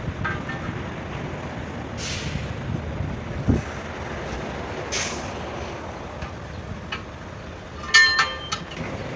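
Truck tyre repair work over a steady background rumble: short bursts of hissing air twice, a dull thump, and a quick cluster of ringing metal clinks from tools near the end.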